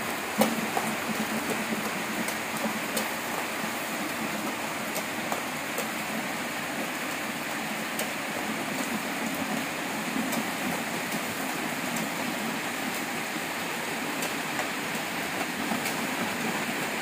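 Steady rain falling: an even hiss with scattered small drip ticks.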